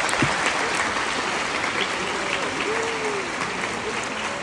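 Theatre audience applauding: many people clapping in a dense, steady wash, with a voice calling out briefly about three seconds in.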